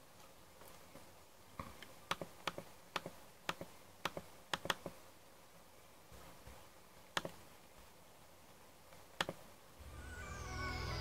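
Quiet room tone broken by sharp, faint clicks: about a dozen in three seconds, then two more spaced well apart. Near the end, synthesizer music fades in with a falling sweep over a low drone.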